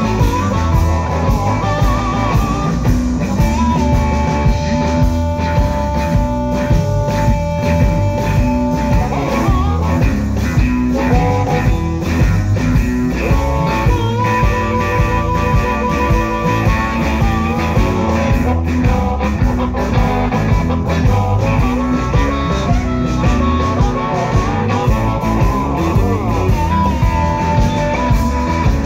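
Live electric blues band: a harmonica played into a vocal microphone over electric guitar, electric bass and drums, with long held notes about four to nine seconds in.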